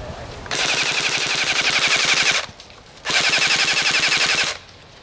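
Airsoft electric gun firing two long full-auto bursts with a short pause between them, the second burst a little shorter: a rapid, even clatter of shots.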